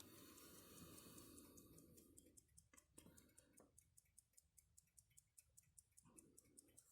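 Alpina pocket watch ticking faintly and evenly, about five ticks a second, its movement running. A faint rustle of handling in the first couple of seconds.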